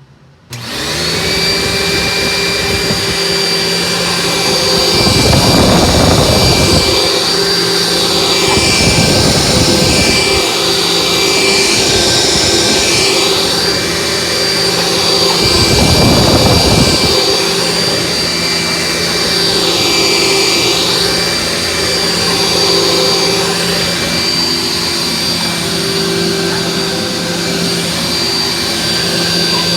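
Vacuum cleaner switched on about half a second in, its motor spinning up at once to a steady run with a high whine. The rushing sound swells and fades a few times as it is pushed over the floor.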